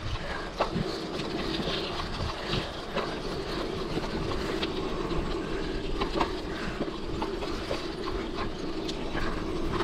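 Mountain bike riding over a rough trail: steady tyre noise with irregular rattles and knocks from the bike.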